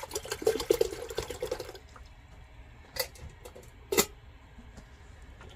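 Water poured from a plastic bottle into a stainless steel pot for about two seconds, then stopping. A second or so later come two sharp metallic clinks about a second apart, as the pot is set onto the small alcohol stove.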